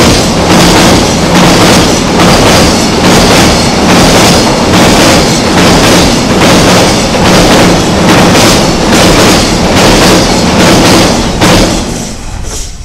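Container freight wagons rolling fast over a railway bridge: a loud rumble with a wheel clatter about twice a second, so loud that the recording distorts. The noise falls away sharply near the end as the last wagon passes.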